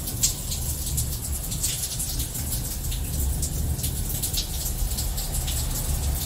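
Steady rain from a thunderstorm, with dense small drop ticks over a low, even rumble.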